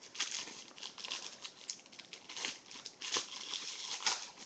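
Foil trading-card pack wrapper being crinkled and torn open by hand: a run of irregular crackles and rustles.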